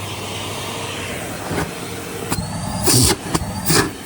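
Numatic Henry 160 compact vacuum cleaner with its 620-watt Lamb motor running just after being switched on: a steady rush of air over a low hum, with a faint whine rising slowly in pitch as the motor spins up. A few louder hissing bursts come near the end.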